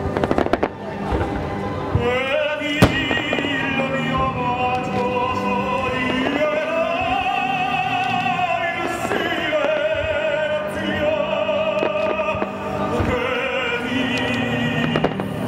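Operatic singing with orchestra: long held notes with wide vibrato. Fireworks go off over it, a rapid cluster of bangs in the first second and one sharp crack about three seconds in.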